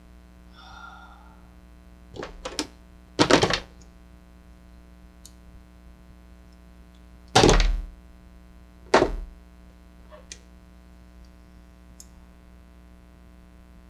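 Several separate knocks and thunks, as of tools and parts being handled and set down on a workbench: small knocks about two seconds in, a louder thunk just after, then two loud thunks a second and a half apart, over a faint steady electrical hum.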